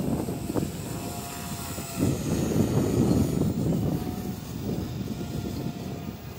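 Radio-controlled model helicopter flying past low overhead: a steady whine from its rotor and motor over a rushing noise, growing louder about two seconds in.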